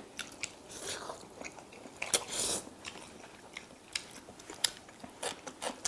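Close-miked eating: chewing with sharp wet mouth clicks, and a short noodle slurp about two seconds in.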